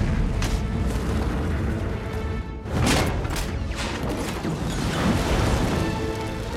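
Film soundtrack of burning balls hurled down a fortress wall: music over a heavy low rumble and booms, with a quick run of sharp whooshes and impacts about three seconds in.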